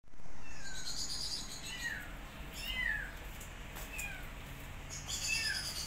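Kitten mewing: about five short, high cries, each falling in pitch, spaced a second or so apart, with a high hissing noise around the first and last cries.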